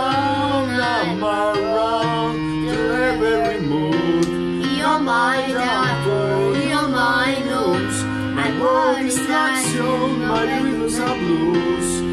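A girl and a man singing a duet into a handheld microphone over recorded backing music.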